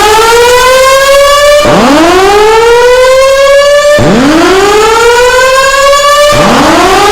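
Fire alarm voice-evacuation system sounding its whoop tone between spoken announcements: a loud rising sweep from low to high pitch, about two seconds long, that snaps back down and repeats back to back, roughly every 2.3 seconds.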